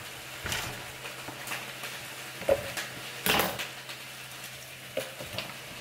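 Knife cutting an onion on a cutting board, then the onion being pulled apart by hand: a few scattered knocks and rustles, the loudest a little past three seconds in. Under them runs a faint steady sizzle of butter heating in a frying pan.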